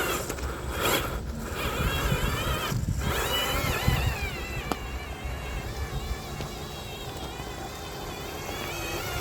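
RC truck driving: its motor and gears whine, rising and falling in pitch with the throttle, over a steady rumble of tyres on rough ground. A single sharp click comes a little after halfway.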